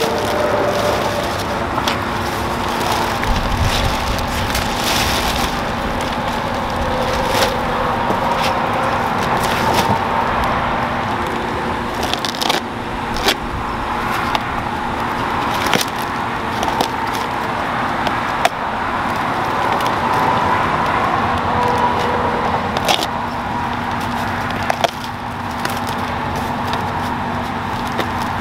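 Plastic bags crinkling and packing foam rustling as battery packs are unwrapped by hand, with scattered sharp clicks, over a steady background hum.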